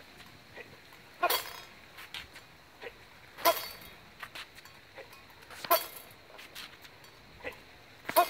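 Steel rapier blades clinking: four sharp metallic strikes about two seconds apart, each ringing briefly, as a feint and cut in second to the head is drilled over and over.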